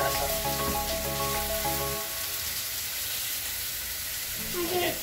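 Background music whose notes stop about two seconds in, over a steady hiss that continues to the end. A short child's vocal sound comes near the end.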